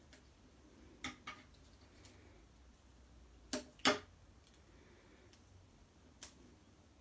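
A few sharp taps and clicks as card and tools are handled on a craft table, the loudest a pair of taps about midway through, over a low steady hum.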